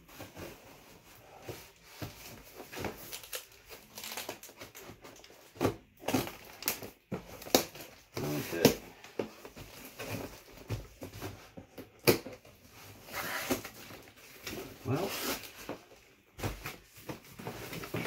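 Cardboard and packaging being handled: irregular rustling, crinkling and sharp knocks as a small cardboard accessory box is opened and its contents pulled out.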